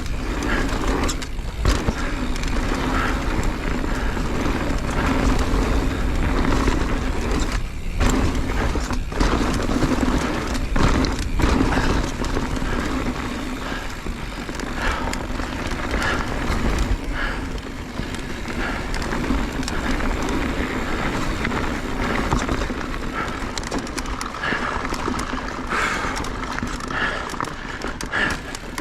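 Mountain bike descending a rocky trail at speed: wind buffeting the microphone, tyres rumbling over rock and the bike rattling, with repeated sharp knocks from hits on the rocks.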